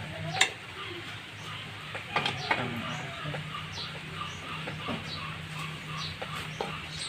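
A few sharp metallic clinks of tools and engine parts being handled, about half a second in and again around two seconds in. Short, high, falling chirps of small birds repeat in the background over a low steady hum.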